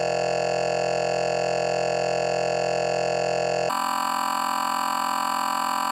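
Loud, steady synthetic electronic buzz, rich in overtones, that switches abruptly to a different, higher buzz nearly four seconds in.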